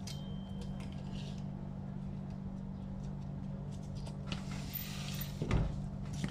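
A tape measure handled against a wire bar on a tabletop: light clicks and a brief sliding rasp, then a single thump near the end as it is set down, over a steady low hum.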